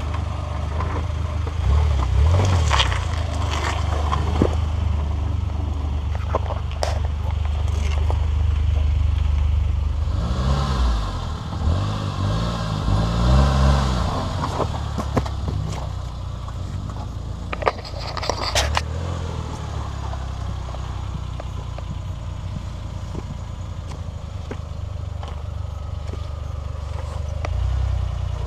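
Suzuki Jimny 4x4 engine running at low revs as it crawls over rocks and dirt, the revs rising and falling a few times about halfway through. Tyres scrape and crunch on stone, with a couple of sharp knocks from the rocks later on.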